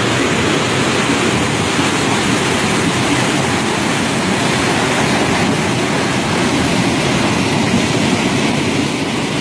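Fast mountain brook rushing over rocks: a loud, steady water noise.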